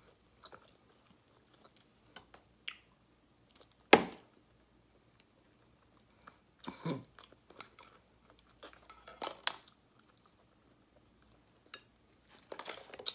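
A person chewing and eating a mouthful of food, with small wet mouth clicks and a few short bursts of noise, and one sharp click about four seconds in.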